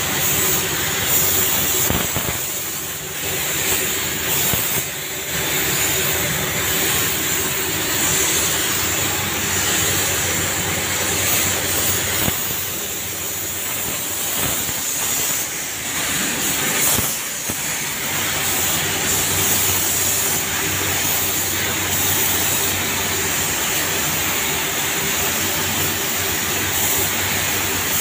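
Compressed-air paint spray gun hissing steadily while spraying paint, letting up briefly now and then, over a steady low hum.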